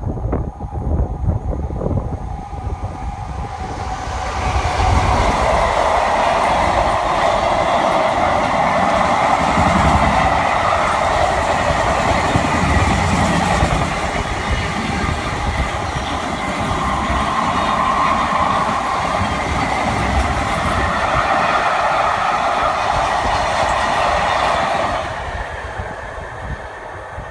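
Freight train of box wagons rolling past, hauled by a Class 66 diesel-electric locomotive: a low rumble that swells about four seconds in into a steady, loud rush of steel wheels on rail, then dies away near the end as the last wagon passes.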